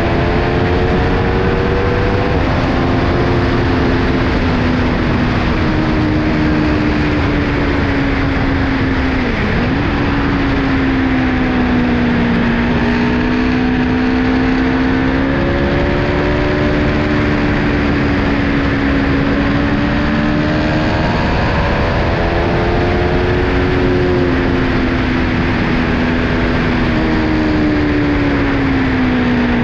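Aprilia Tuono 1100's V4 engine pulling along at road speed, its pitch rising and falling with the throttle and dipping sharply for a moment about ten seconds in and again at the end, over a steady rush of wind and road noise.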